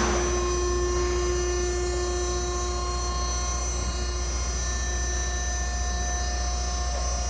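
Shaffer double sigma mixer's bowl-tilt drive running steadily as the mixing bowl tilts back up to its mixing position: an even mechanical whine with several held tones over a low hum.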